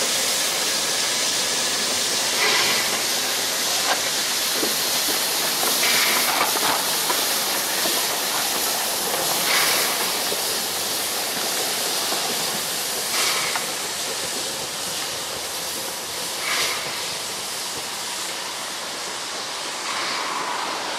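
Steady hiss of a steam train moving away, with a brief swell of sound every three to four seconds.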